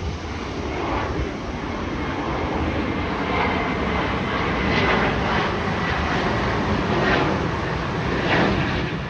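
Airbus A380's four jet engines at takeoff thrust during the takeoff roll: a steady, loud rushing noise with a faint high whine, growing a little louder, with several brief sharper swells.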